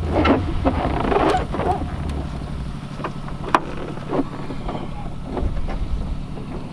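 Wind buffeting the microphone with a steady low rumble, over rustling and a few sharp clicks and knocks as a person climbs into a small helicopter's seat.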